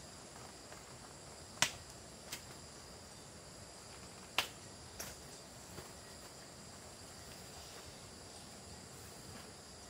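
Insects trilling steadily, with a few sharp clicks or snaps, the loudest about one and a half and four and a half seconds in.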